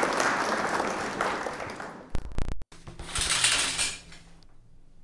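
Applause, dense clapping that fades away over the first two seconds. Then comes a brief low thump with a dropout, and about three seconds in a short high hissing swish.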